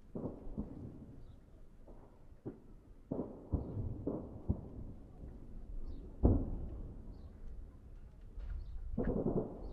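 Distant explosions at a large steel plant: irregular low booms and sharper bangs, the loudest about six seconds in and a quick cluster near the end, over a low rumble.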